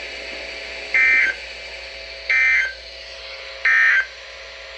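Emergency Alert System SAME digital data tones: three short, identical warbling bursts about a second apart, the end-of-message code that closes the alert broadcast.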